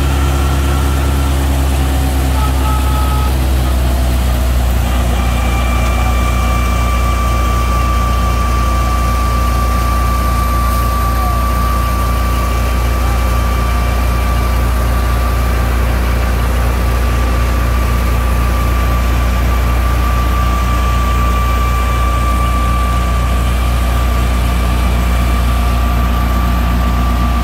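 Tractor-driven wheat thresher running steadily: a constant low engine drone, joined about five seconds in by a steady high whine.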